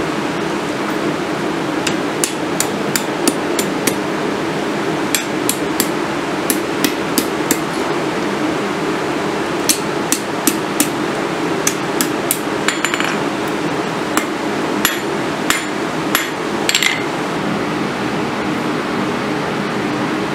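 Hand hammer striking a small red-hot steel piece held in tongs on an anvil, in several quick runs of light blows with short pauses between them, over a steady background hum and hiss. The blows stop a few seconds before the end.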